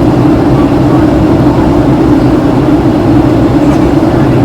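Steady cabin drone of a Boeing 757-200 in flight during descent toward landing: engine and airflow noise with a steady low hum.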